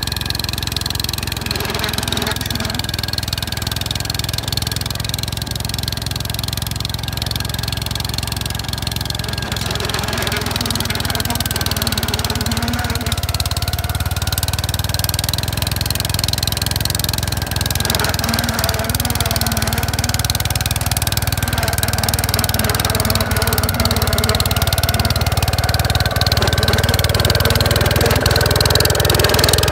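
Gravely walk-behind tractor engine running steadily while driving a snowblower attachment. It grows a little louder toward the end.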